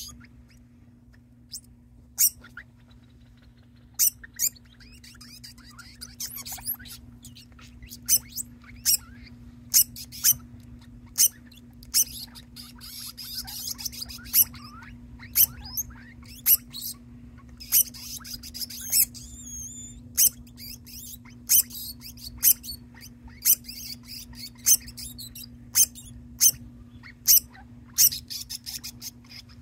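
Degu calling over and over in short, high-pitched squeaks, about one a second, beginning about two seconds in and coming a little faster toward the end.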